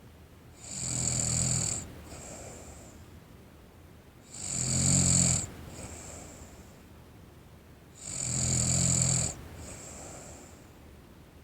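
A sleeping teenage girl snoring in a steady rhythm: three loud snores about three and a half seconds apart, each followed by a softer breath.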